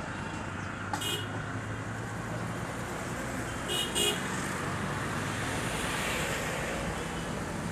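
Steady hum of city road traffic with short high-pitched vehicle horn toots: one about a second in and two quick toots around four seconds in.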